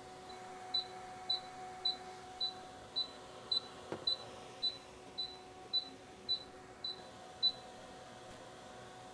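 MAXXAIR MSX 3030 refrigerant recovery/recharge machine beeping: about a dozen short high-pitched beeps, roughly two a second, that stop shortly before the end, over a steady low hum. The beeping is its alert that the R-1234yf charge is complete and that it is waiting at the "Go to car health?" prompt.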